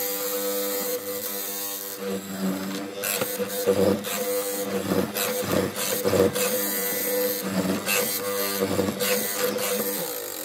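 Benchtop hollow-chisel mortiser's electric motor running with a steady hum, its square chisel and auger plunged again and again into softwood, rough chip-cutting noise coming in from about two seconds in.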